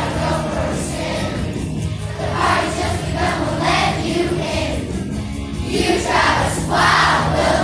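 A large group of children singing along to recorded backing music with a steady bass line.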